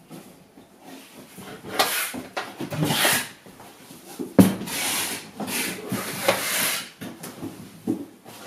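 Metal fold-out legs of a folding desk being swung open by hand: repeated scraping and sliding of the steel brackets against the board, with a sharp knock about four and a half seconds in and a smaller clack near the end.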